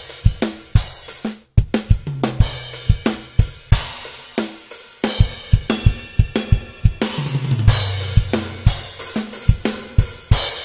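Programmed drum beat played from unprocessed multi-mic acoustic drum samples: PDP X7 kick and maple toms with a Ddrum Dios Bubinga snare. Fast repeated kick drum under snare, hi-hats and cymbals, with a tom fill about two seconds in and another about seven seconds in that falls in pitch.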